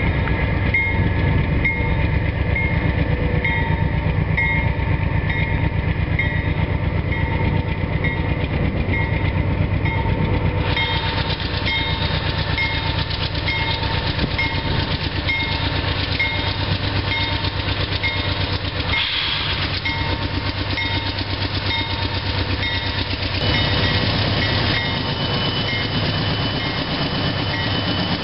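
Union Pacific diesel-electric locomotives leading a freight train, their engines working under load as they approach and pass close by: a deep, steady rumble that grows fuller about ten seconds in. A short high ding repeats about every 0.7 seconds behind it.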